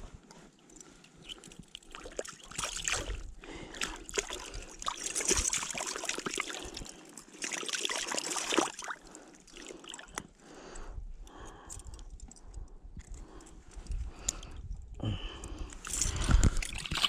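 Lake water sloshing and splashing in uneven swells, with small clicks and knocks mixed in.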